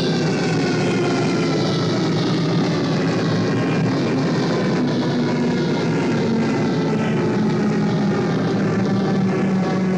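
A steady droning hum over a rushing noise, with many overtones that slowly fall in pitch.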